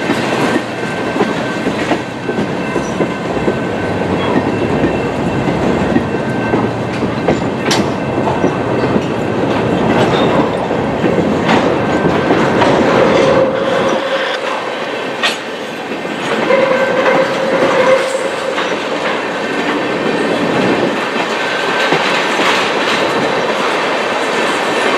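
Freight train of tank cars rolling past at close range: steady wheel and rail noise with the clickety-clack of wheels over the track and occasional sharp clanks. A brief wheel squeal comes twice around the middle.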